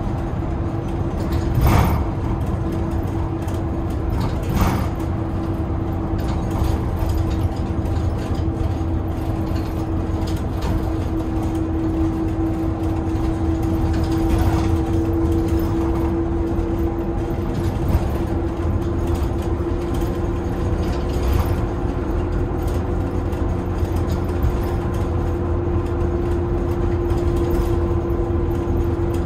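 Inside a bus cabin under way: steady engine and road rumble with a constant whine that rises slightly in pitch about halfway through. A couple of short knocks come about two and five seconds in.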